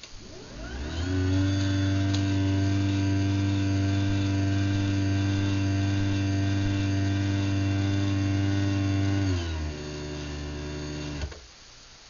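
Craftsman belt-drive garage door opener running an opening cycle started from its keypad: the motor hum ramps up, runs steady, then slows to a lower pitch near the end of travel and stops with a click.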